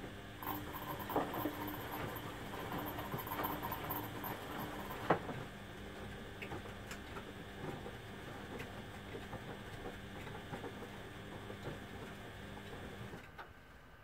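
Two Beko front-loading washing machines running a delicate wash side by side: drums turning wet laundry, with sloshing water, a motor hum and a patter of small knocks. A sharper knock comes about five seconds in, and the sound drops quieter shortly before the end.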